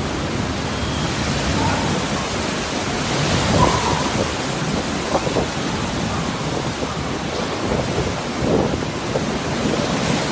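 Heavy typhoon rain pouring in strong wind: a loud, dense, steady rushing that swells a little now and then.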